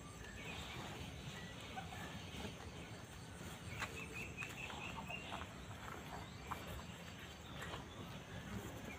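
A calf feeding at a trough of chopped grass and dry leaves, its muzzle rustling the fodder with scattered soft clicks over steady low background noise. About four seconds in, a bird chirps a quick run of about six short notes.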